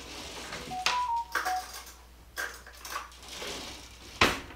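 Metal spoons clinking and rattling as they are fetched in the kitchen, with a few brief ringing tones about a second in and one sharp knock near the end.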